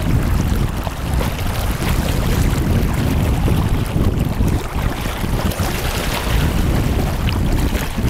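Wind buffeting the microphone over the rush of a river's current: a steady, gusting low rumble with no distinct events.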